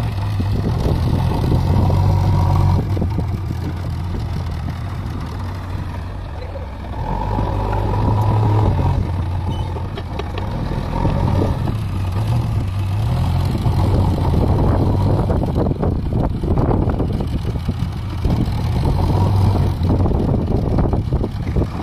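JCB 3DX backhoe loader's diesel engine running under load as the front loader digs and lifts soil, revving up and easing off several times.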